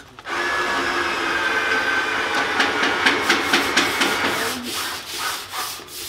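Push broom's bristles scrubbing a corrugated metal sheet: a steady rasping hiss that breaks into quick separate strokes from about halfway.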